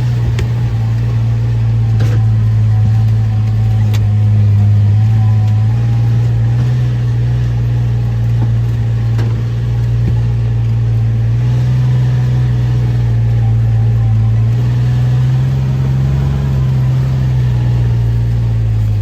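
Farm vehicle's engine running with a steady low drone as it drives across the field.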